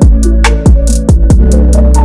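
Background music: an electronic track with a steady beat and deep bass notes that slide downward a few times.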